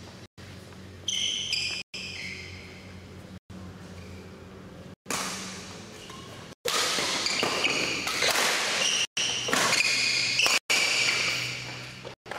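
Badminton drill: racket strings hitting a shuttlecock back and forth, with sharp impacts and high squeaks from the players' court shoes, busiest in the second half.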